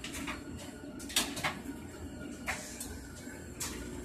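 Aquarium bubble wall and its air pump running: a steady low hum with irregular sharp pops and clicks of bubbles, the loudest a little over a second in.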